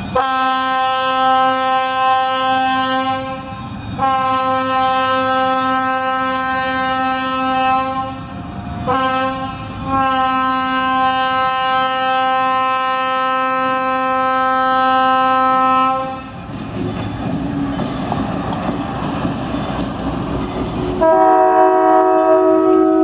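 Ex-Burlington Northern GE U30C diesel locomotive sounding its air horn in a long, long, short, long pattern, the grade-crossing signal. The horn is followed by the engine's rumble as it approaches at low speed. About two seconds before the end, its bell starts ringing.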